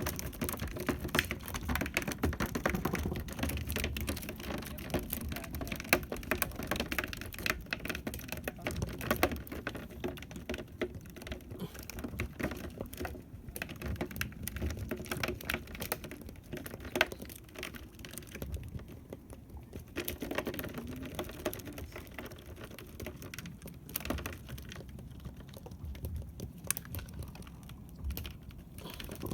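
Dense, irregular clicking and tapping of close handling on a small fishing boat, as a handline and its catch are worked by hand.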